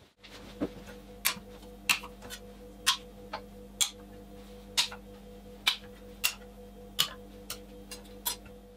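Kitchen knives being lifted off a wooden cutting board and snapped onto magnetic knife stands: a string of sharp, irregular clicks, roughly one every half second, over a faint steady hum.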